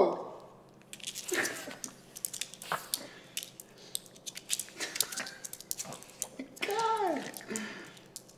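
A small dog sniffing and licking soap shavings off a hardwood floor, with many light clicks and taps of claws and mouth on the wood. About two-thirds through, a short wordless voice sound rises and falls in pitch.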